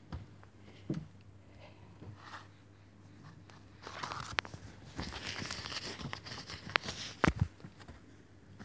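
Rustling and crinkling of a thin bag or cloth handled close to a phone's microphone, with a few sharp knocks, as a hand reaches down to pick up a toad. It starts about four seconds in and stops about three seconds later.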